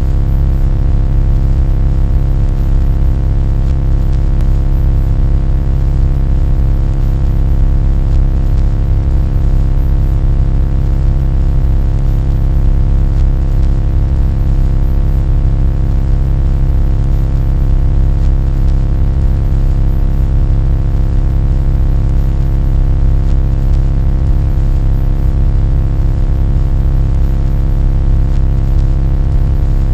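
A loud, steady low-pitched drone with a dense stack of evenly spaced overtones, unchanging throughout.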